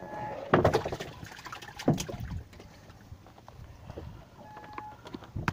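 Knocks and rubbing from handling on the wooden deck of a small fishing boat, loudest about half a second and two seconds in, with a sharp knock near the end.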